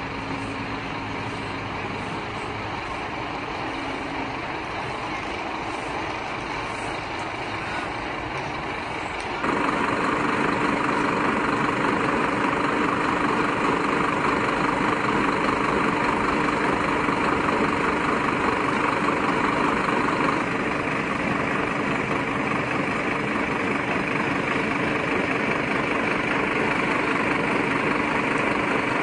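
Heavy diesel engine idling steadily with a constant hum, like a fire engine standing by with its pump running; it jumps louder about nine seconds in.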